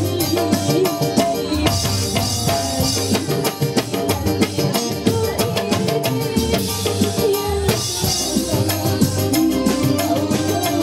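Live dangdut band music played loud through a PA: a woman sings a melody over keyboard, electric guitar and a steady drum beat.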